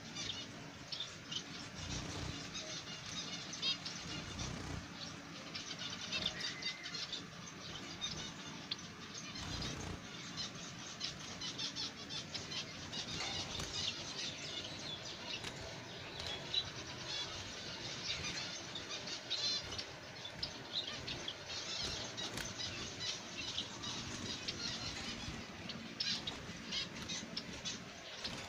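Zebra finches calling constantly with short, high chirps, with their wings fluttering as they fly about the cage.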